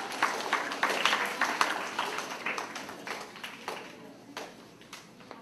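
Scattered hand clapping from an audience, thinning out and fading away over the last couple of seconds.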